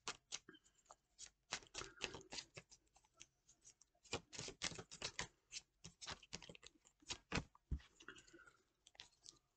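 Tarot cards shuffled by hand: a quick, irregular run of short papery clicks and snaps, with a brief lull a little over three seconds in.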